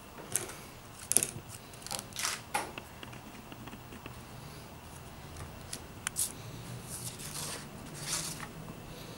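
Scattered short rustles, clicks and scrapes of things being handled on a desk: the cards of a Rolodex card file and loose sheets of paper being moved.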